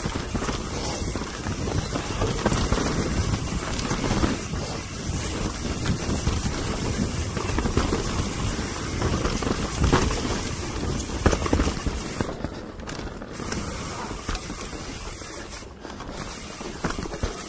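Mountain bike descending a rooty dirt trail at speed: wind rushing over the camera microphone, with the bike rattling and knocking continually as its tyres hit roots.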